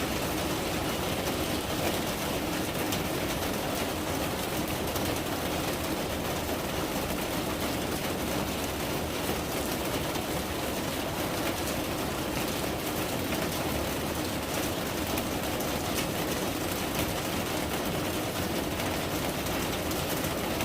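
Steady rain falling: an even, unbroken hiss with many small drop ticks scattered through it.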